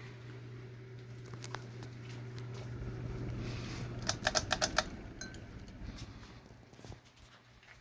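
Antique Minerva ceiling fan's electric motor humming steadily. About four seconds in, the hum dies away with a quick run of about half a dozen sharp clicks.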